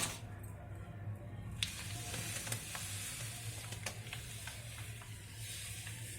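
Dry broken wheat (dalia) being poured onto a plate: a steady grainy hiss with scattered light ticks.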